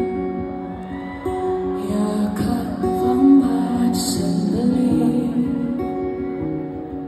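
Live pop ballad: a woman singing into a microphone while playing acoustic guitar, with a backing band, amplified through the PA and heard from the crowd in an arena.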